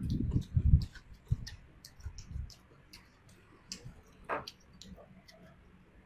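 Close-miked eating sounds of people chewing mustard-green rolls filled with pork, egg and cucumber: scattered wet mouth clicks and smacks, with a few heavier low knocks in the first second.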